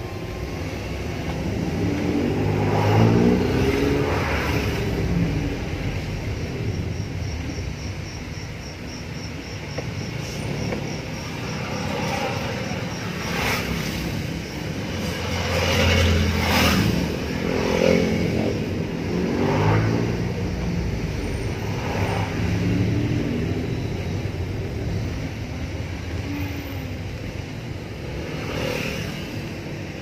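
Toyota Wigo's engine running while the car is driven, over steady road noise. The revs rise and drop several times as it accelerates.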